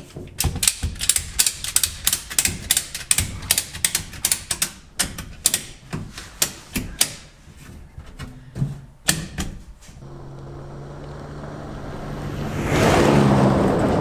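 Strapinno retractable ratchet strap being cranked tight over a tire: a fast, uneven run of sharp ratchet clicks for about ten seconds. Then a Chevrolet pickup drives on a dirt road, a steady engine hum with tyre noise that swells near the end.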